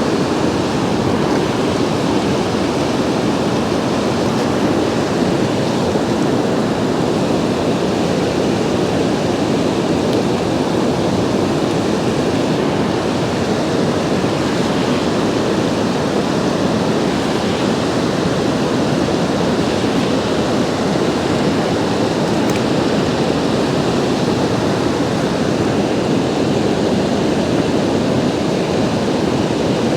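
River water rushing steadily: an even, unbroken noise with no distinct events.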